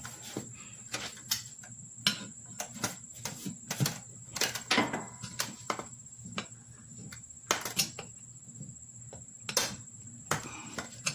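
Irregular knocks and clicks from a riding lawnmower tire being worked back over its rim by hand and foot, over a steady high-pitched insect trill.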